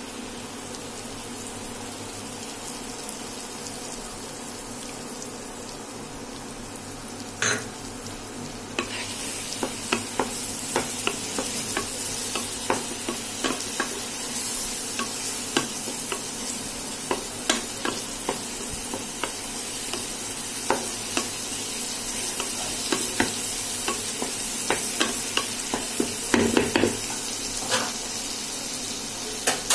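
Chopped onion, capsicum and carrot sizzling in oil and a freshly poured soy-sauce spice mix in a nonstick wok, while a wooden spatula stirs them, knocking and scraping against the pan. The sizzle gets louder about eight seconds in, and the spatula knocks come often from then on.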